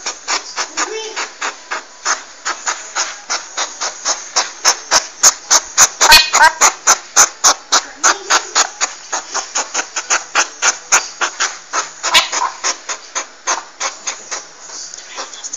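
Porcupine making a fast, even run of dry clicks, about four or five a second, louder in the middle and fading near the end, with a few short squeaky calls mixed in.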